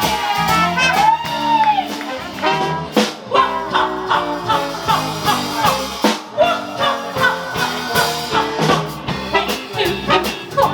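Dixieland jazz band playing an instrumental passage: brass lead lines over a low stepping bass and a steady beat, with one brass note that bends up and back down about a second in.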